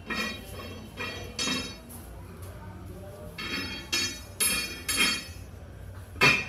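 Metal clinks and clanks of a loaded barbell as it is gripped and rocked on the floor, about eight sharp ringing strikes, the loudest near the end.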